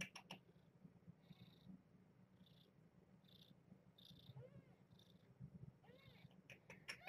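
Mother cat purring softly and steadily while her newborn kittens nurse, with a couple of faint, high kitten squeaks about halfway through and again near the end. A few soft clicks at the start and just before the end.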